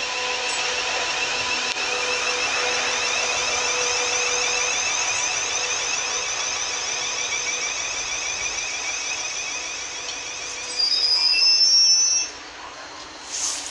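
Thameslink Class 700 electric train running in along the platform, its traction equipment giving a steady high-pitched whine over the running noise. About 11 seconds in, a loud high brake squeal lasts about a second as it draws to a stop, followed near the end by a short hiss.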